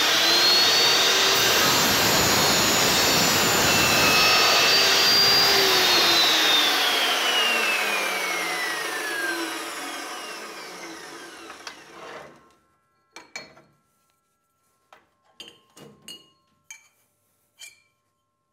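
Evolution 15-inch cold cut saw cutting square cut through 1-inch square metal tubing: a loud, steady cutting noise for about five seconds. After the cut the motor's whine falls steadily in pitch and fades as the blade spins down. It ends in a few light clicks and knocks as the vise is worked.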